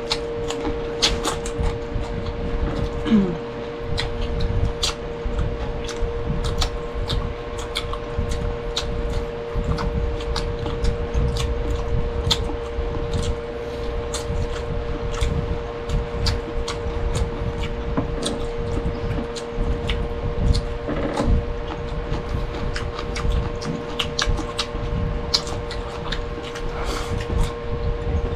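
Eating sounds: chewing with frequent short, sharp clicks and smacks, over a steady hum.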